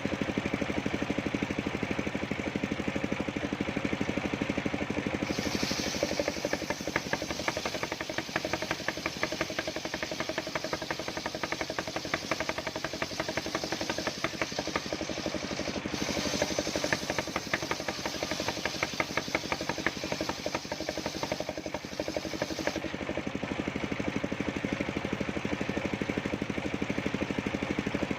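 Engine of a homemade circular sawmill running steadily. From about five seconds in until about twenty-three seconds, the saw blade cuts through old coconut wood, adding a high, rapid rasping sound over the engine.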